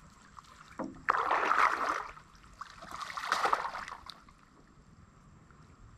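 Water splashing and pouring as a woven bamboo basket is swept through shallow lake water and lifted out, twice: once about a second in, then again about a second and a half later.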